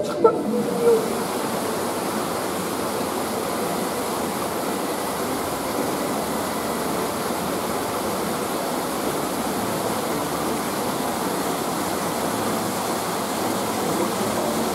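A steady, even rushing noise, like running water, that holds without a break.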